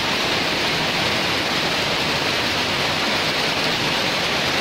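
Rain falling steadily on a wet street: a constant, even hiss.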